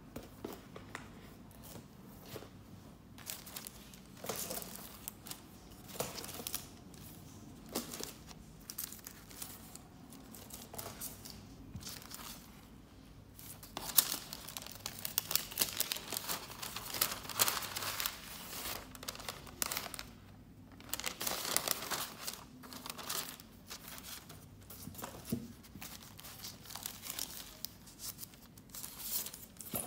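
Thin translucent paper sleeves rustling and crinkling as they are handled and leafed through, in irregular bursts that are busiest and loudest around the middle.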